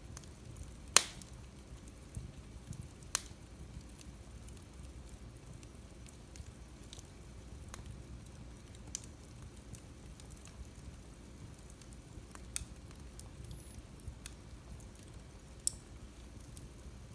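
Wood fire burning in a fireplace: a low steady rumble of flames with crackling, sharp pops about a second in and again near three seconds, smaller pops later on, and many faint ticks between.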